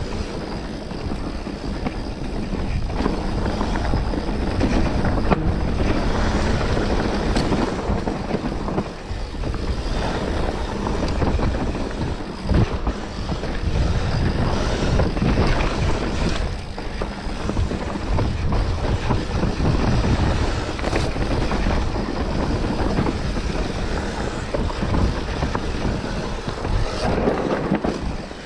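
On-board noise of an enduro stage run: a steady rumble with wind buffeting the microphone, broken by a few sharp knocks from the rough trail.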